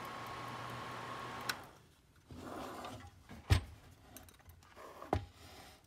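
Kodak Carousel slide projector's fan motor running with a steady hum and faint whine, cut off by a switch click about a second and a half in. Then handling noise and two sharp knocks, the first the loudest, as the opened projector is turned and set down on the bench.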